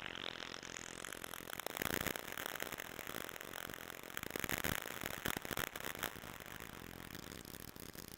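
Korg Volca synthesizer run through a bitcrusher, Kaoss Pad and effects unit, making a gritty, noisy electronic drone with recurring swells of hiss.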